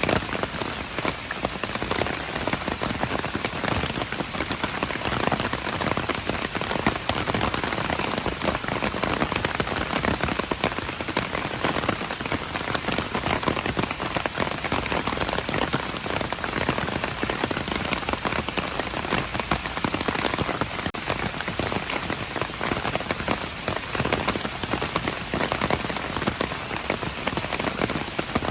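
Steady rain: a dense, even patter of countless drops, unchanging throughout.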